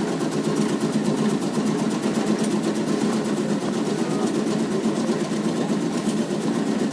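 Tobacco cutting machine running steadily, with a fast, even mechanical chatter over a constant hum.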